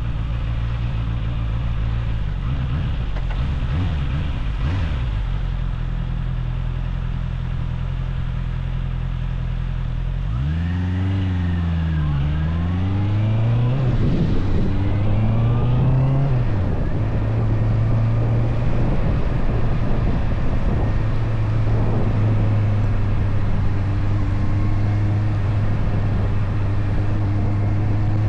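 Motorcycle engine running steadily, then rising and falling in pitch several times between about ten and seventeen seconds in as it revs through gear changes, before settling into a steady, slightly louder cruise.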